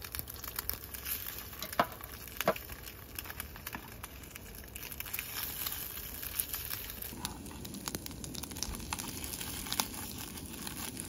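Egg-dipped slices frying in oil in a pan, a steady sizzle that swells about seven seconds in, with a few sharp clicks of metal tongs against the pan.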